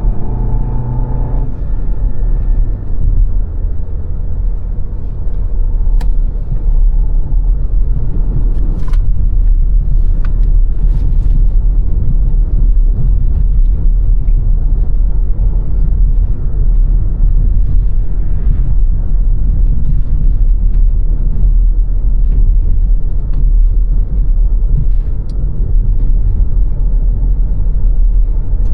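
A car driving on the road: a steady low rumble of engine and tyre noise, with an engine note that fades about a second and a half in and a few short ticks scattered through the middle.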